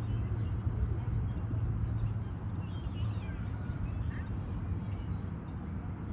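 Steady low outdoor rumble with small birds chirping faintly and often, high-pitched short calls throughout.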